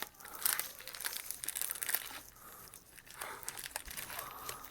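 Foil trading-card booster packs crinkling in irregular crackles as they are handled and shuffled through, with a quieter spell near the middle.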